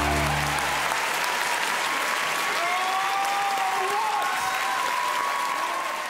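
Large theatre audience applauding, with a few voices cheering over it. Music plays underneath at first and stops about a second in.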